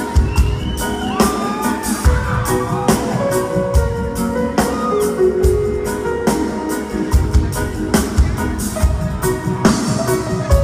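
Reggae band playing live: a steady drum beat with bass, guitar and keyboard notes, and a few sliding higher notes in the first few seconds.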